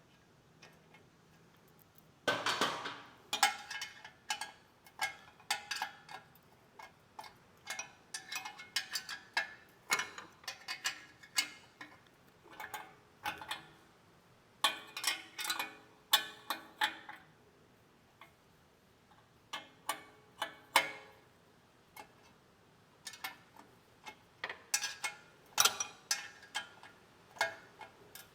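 Hand ratchet clicking in short irregular runs with a metallic ring as exhaust bracket bolts are backed out.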